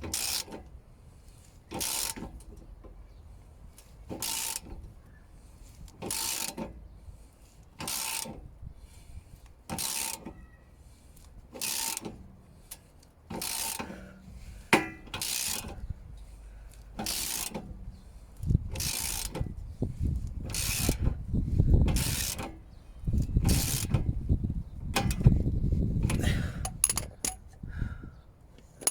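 Ratchet wrench worked in regular strokes, one rasping pull about every two seconds. From about two-thirds of the way through, a heavier, louder low-pitched sound comes in under the strokes.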